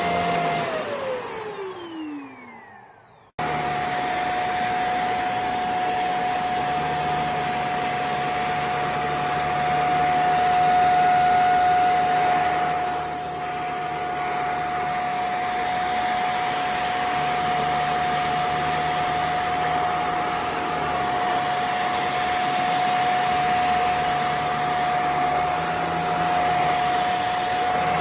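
Handheld bed vacuum cleaner's motor running with a steady whine, switched off about a second in so that the whine falls in pitch as it spins down and fades. It starts again about three seconds in and runs steadily, with a slight rise in loudness partway through.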